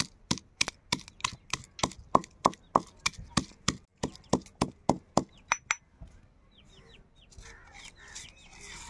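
Stone pestle pounding garlic cloves and cumin seeds in a granite stone mortar, sharp stone-on-stone knocks about three a second, coarsely crushing them. The pounding stops about six seconds in.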